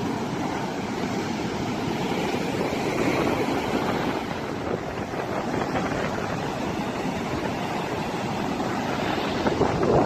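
Rough sea surf breaking and washing up a sandy beach: a steady rush of breaking water, with wind buffeting the microphone.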